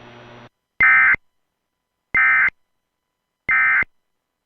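Emergency Alert System end-of-message data signal: three short, identical bursts of the warbling digital AFSK tone, evenly spaced a little over a second apart, sent over AM radio to close the required monthly test.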